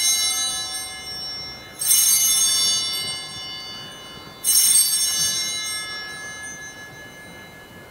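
Altar bells rung at the elevation of the chalice, the signal of the consecration: a strike just before the start keeps ringing, then two more strikes about two and a half seconds apart, each a cluster of bright high tones that slowly fade.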